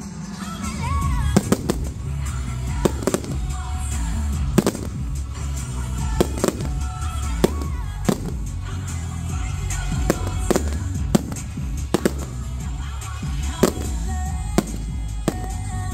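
Fireworks going off in quick succession, about one or two sharp bangs a second, over a display soundtrack of music with a heavy bass.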